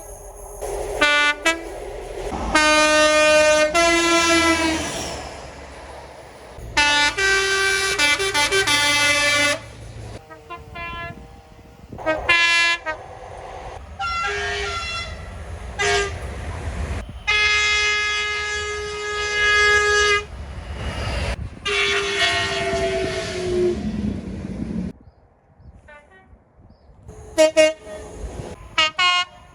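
A run of train air horns from several trains: short toots and long blasts of two to three seconds, several switching between two notes, one sliding down in pitch as it fades. A low rumble of the trains runs underneath.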